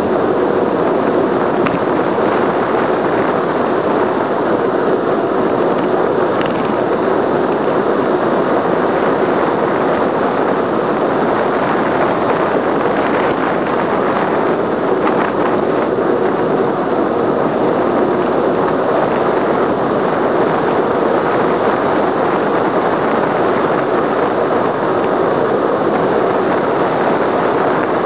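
Steady, loud rush of wind over the microphone of a camera on a road bicycle descending fast, around 50 km/h, mixed with the hiss of the tyres on asphalt.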